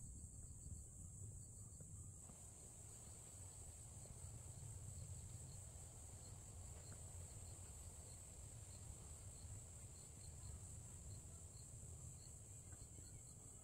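Faint, steady, high-pitched chorus of insects, with softer scattered chirps and a low steady rumble underneath.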